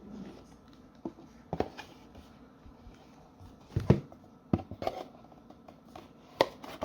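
Cardboard box and its loose cardboard insert being handled: a series of light knocks and scuffs, the loudest about four seconds in and another near the end.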